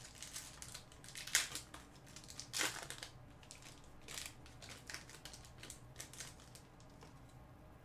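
Foil trading-card pack wrapper crinkling as it is torn open and the cards are slid out, in a series of short crackles, the loudest about one and a half and two and a half seconds in.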